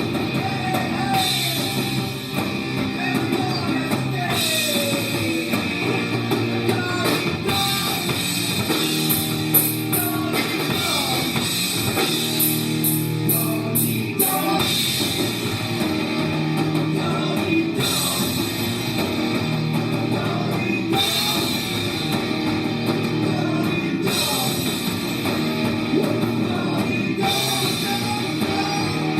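A rock band playing a song, with drum kit and electric guitar.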